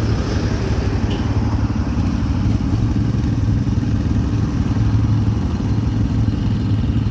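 ATV engines running steadily as the quad bikes ride along, a constant low drone.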